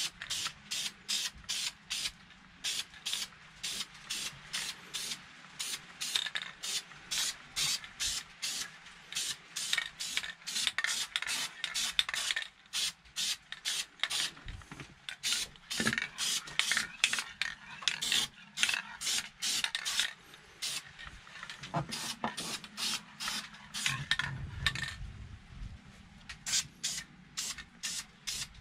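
Aerosol spray can of engine enamel hissing out paint in short, quick bursts, about two a second, with a few brief pauses.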